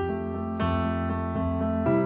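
Background film-score music: sustained chords, likely on keyboard, changing every half second or so.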